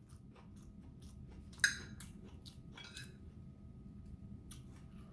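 Close-up eating sounds: kimchi and rice being chewed, with scattered small clicks and one sharper click a little under two seconds in.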